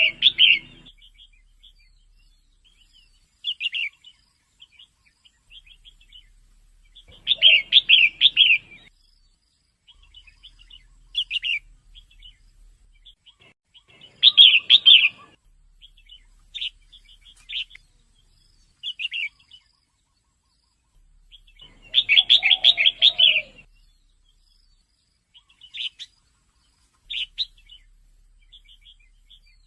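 Female red-whiskered bulbul calling in short bursts of rapid chirps, repeated every few seconds with pauses between; two longer chattering phrases come about a quarter and three quarters of the way through.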